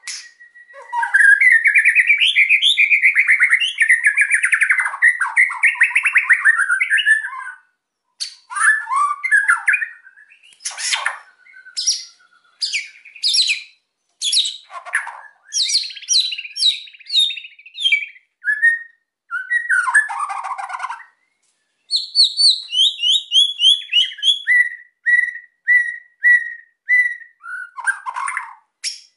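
White-rumped shama (murai batu) in loud, agitated full song: a long rapid rattling trill, then a string of varied sharp whistled phrases, and near the end a run of short repeated notes about two a second.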